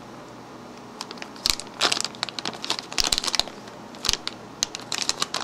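Plastic anti-static bag crinkling in several short bursts as a new 2.5-inch laptop hard drive is unwrapped from it.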